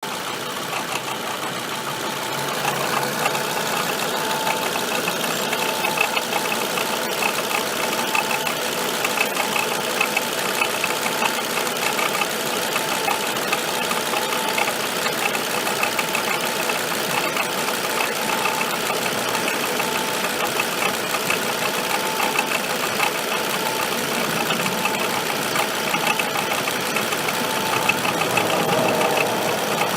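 A motor running steadily with a mechanical clatter, getting a little louder about two and a half seconds in.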